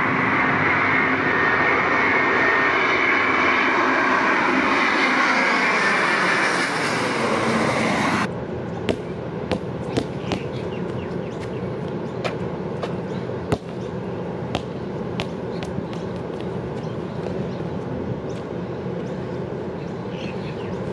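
Twin-engine jet airliner passing low overhead, loud engine noise with pitch lines sliding downward as it goes by; it cuts off suddenly about eight seconds in. After that, a basketball being dribbled on a wet outdoor court, a sharp bounce roughly every second, over a low steady background.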